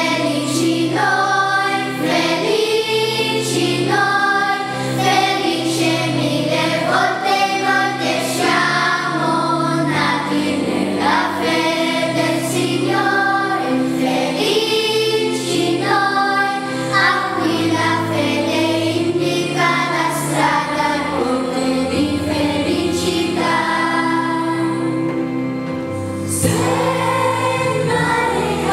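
Children's choir singing a song together, over steady instrumental accompaniment with held bass notes.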